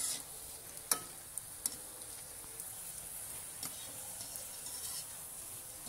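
Besan-battered cauliflower pakoras deep-frying in hot oil in a steel kadai, a steady sizzle, with a few light clicks as a wire skimmer touches the pan. This is the first, light fry of two.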